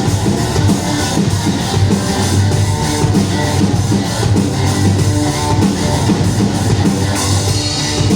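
A rock band playing live: distorted electric guitars over a full drum kit and bass, heavy and loud.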